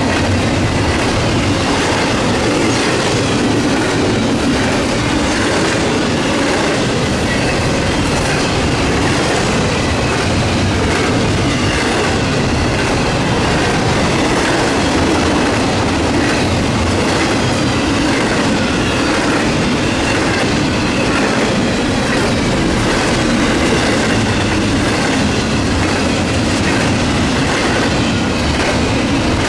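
Railroad cars rolling past close by, a steady loud rumble with steel wheels clicking over the rail joints and a faint squeal from the wheels.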